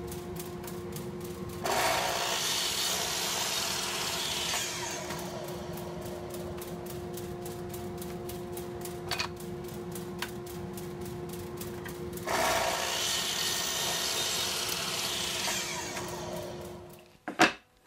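Miter saw running with a steady motor tone, its blade cutting through a strip of maple hardwood twice: about two seconds in and again about twelve seconds in, each cut louder than the free-running saw. The saw dies away near the end.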